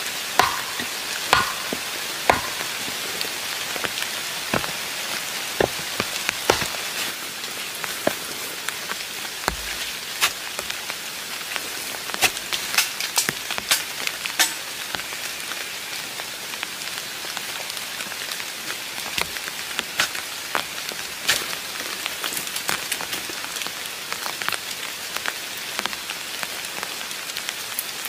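Steady rain falling, an even hiss with heavy drops ticking irregularly, more of them in the first half.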